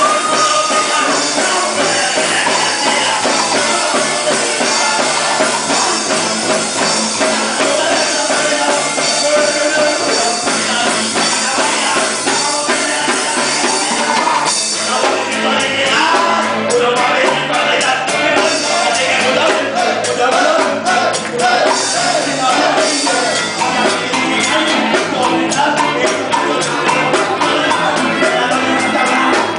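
Loud music with singing and a steady percussion beat, becoming busier in the second half.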